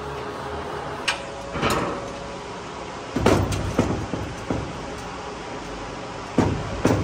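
Irregular bangs and knocks from work on a dump truck's steel tailgate, about seven of them, loudest in pairs around the middle and near the end, over a steady background noise.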